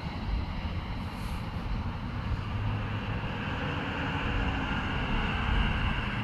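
Road traffic: cars and trucks driving past on a multi-lane road, a steady noise with a heavy low rumble.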